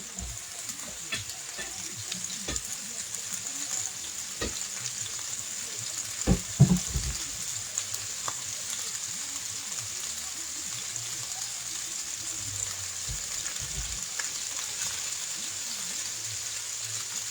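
Beef pot roast searing in hot oil in a skillet: a steady sizzle with scattered small pops of spitting fat. A couple of louder knocks against the pan about six seconds in.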